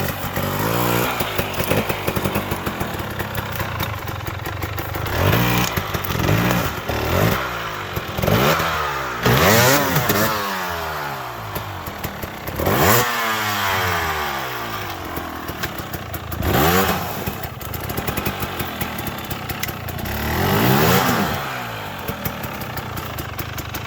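Dirt bike engine revved hard in repeated bursts, its pitch sweeping up and falling back each time, as the bike is worked over slippery logs. There are a couple of sharp knocks in the middle.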